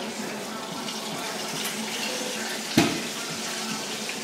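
A roasting dish taken out of an oven, with one sharp knock nearly three seconds in, over a steady rushing hiss in the kitchen.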